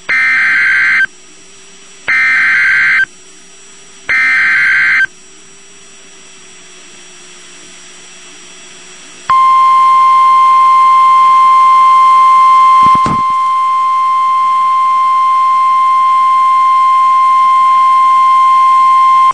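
NOAA Weather Radio Emergency Alert System broadcast. It opens with three loud, screechy one-second bursts of SAME digital header data about a second apart. After a few seconds of radio hiss comes the steady 1050 Hz warning alarm tone, held for about ten seconds, with a brief click partway through. This is the standard signal that an alert message follows.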